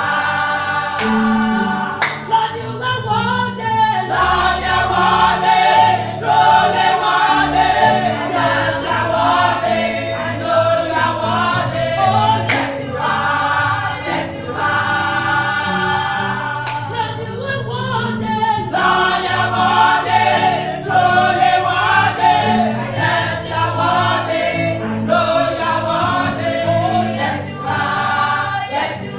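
Many voices singing a gospel song together over instrumental accompaniment with a moving bass line.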